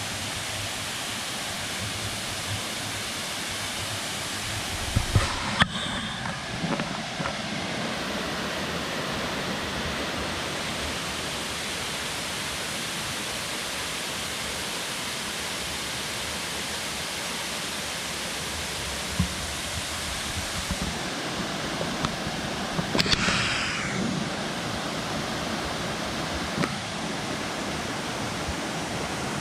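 Waterfall rushing steadily, running full with plenty of water, which she puts down to the rain. A few brief knocks break in about five seconds in and again around twenty-three seconds.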